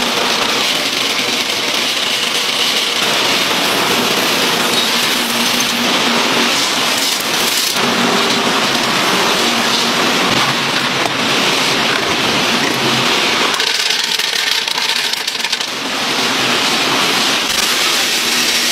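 Food-processing machinery running, with dried rice grains rattling across metal conveyors and vibrating trays: a steady, dense hiss like rain with a faint hum underneath. It changes slightly in tone at shot changes about 8 and 14 seconds in.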